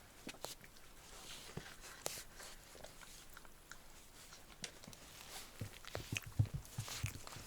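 Little puppy hiccuping: faint, sharp little clicks at irregular intervals, with a run of soft low thumps near the end.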